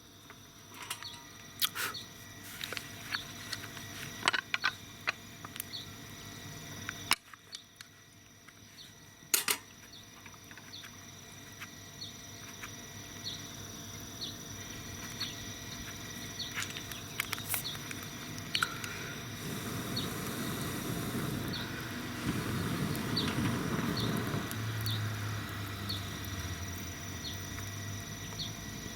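Cedar firewood fire crackling in a small fire pit, with irregular sharp pops that are thickest in the first ten seconds. A broader rushing noise swells up later on.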